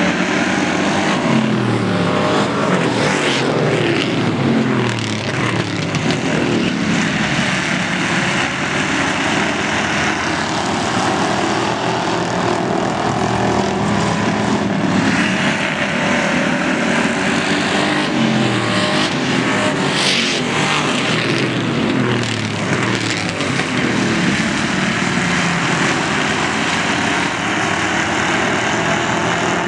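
A field of Ford Crown Victoria stock cars racing around a short oval, several 4.6-litre V8 engines running hard at once, their engine notes sweeping up and down as the cars accelerate off the corners and pass by.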